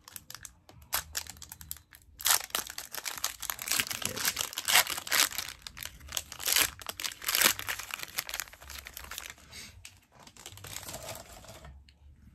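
A foil trading card pack being torn open and its wrapper crinkled in the hands: a dense crackling that starts about two seconds in, is loudest in the middle, and thins out near the end.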